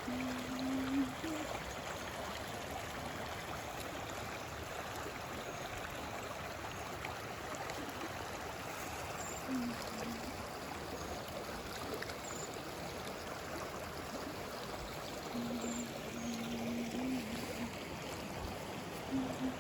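Creek water running steadily. A faint low wavering tone comes in just after the start and again in the last few seconds.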